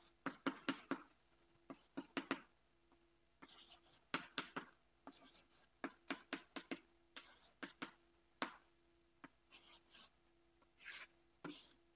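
Chalk writing on a chalkboard: faint clusters of short scratches and taps as lines of equations are written, with brief pauses between them.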